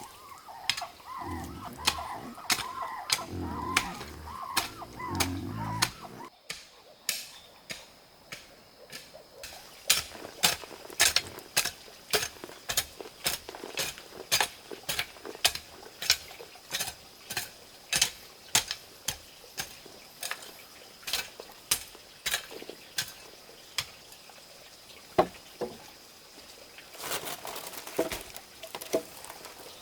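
A few seconds of repeated short bird calls, then a long run of sharp taps or knocks, about two a second.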